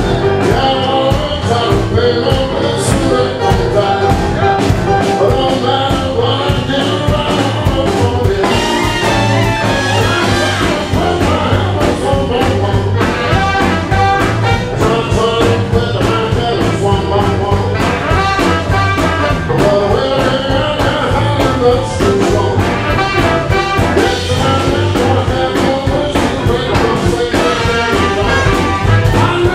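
Live jump-blues band playing at a driving tempo: trumpet and tenor saxophone over electric guitars, keys, bass and a steady drum beat.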